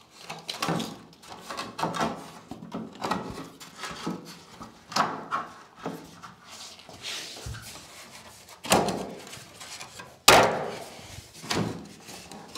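Wooden skirting board being pushed and knocked into place against a wall and tiled floor: a run of irregular knocks, taps and scrapes, with two louder thuds about a second and a half apart about two-thirds of the way through.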